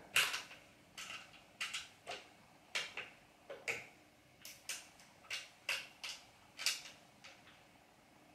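Irregular sharp metal clicks and knocks from the Meopta Optilux 85103 film projector as a knob is loosened and the reel arms are worked out of the body, about one or two a second, stopping shortly before the end.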